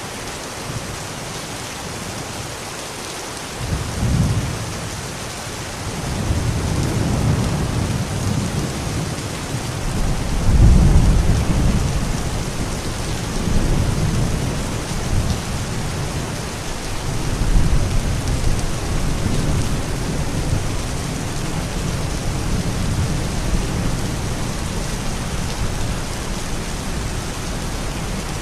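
Steady rain falling, with a long roll of thunder. The thunder starts about three and a half seconds in, builds to its loudest about a third of the way through, swells again twice, and keeps rumbling lower under the rain to the end.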